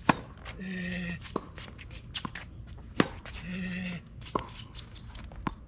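Tennis ball struck with rackets in a hard-court rally: a sharp pop twice, about three seconds apart, with lighter taps in between. Each pop is followed about half a second later by a short, low, held pitched sound.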